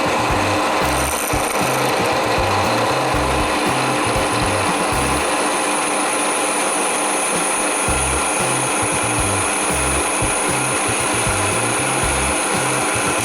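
A Titan TTB541DBT 700 W pillar drill running with its bit cutting into 3 mm steel plate: a steady grinding with a thin high whine that sets in about a second in. Background music with a bass line plays underneath.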